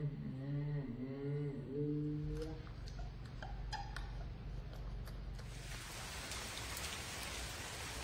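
A droning tune with a repeating up-and-down melody stops about two and a half seconds in. A few light clicks follow, then steady rain from about five and a half seconds.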